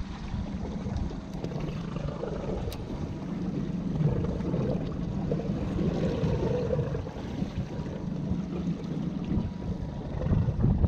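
Fishing boat's motor running steadily at sea, with wind buffeting the microphone.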